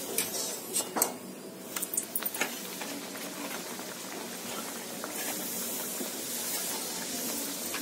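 Puri deep-frying in hot oil in a kadhai, the oil sizzling and bubbling. In the first couple of seconds a wire skimmer clicks against the pan several times, and about five seconds in the sizzling grows louder.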